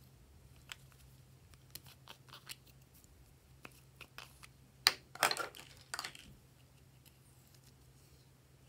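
A small plastic squeeze tube being handled and opened: a few light plastic clicks, then about five seconds in a sharp snap and about a second of scratchy crackling as the cap comes off.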